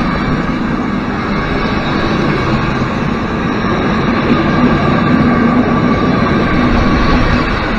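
Passenger coaches of a passing train rolling by at close range: a steady rumble and clatter of steel wheels on the rails.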